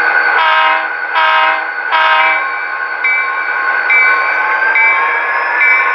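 Diesel locomotive sounds from the DCC sound decoder of an Athearn SD50 model locomotive: the engine drones steadily under three short horn blasts, followed from about halfway in by a bell ringing about once a second.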